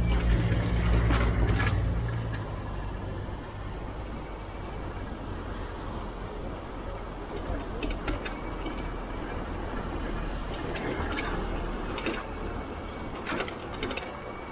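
City street traffic: a large vehicle's engine runs loudly close by for about the first two seconds, then fades. Steady traffic noise follows, with scattered clicks and knocks.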